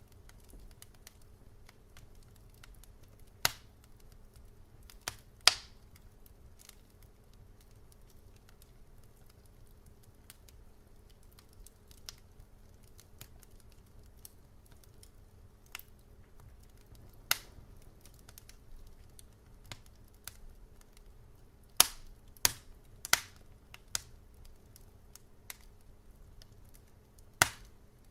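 Wood fire crackling: scattered sharp pops and snaps from the burning logs over a quiet low hiss, with a cluster of the loudest pops about 22 to 23 seconds in and another near the end.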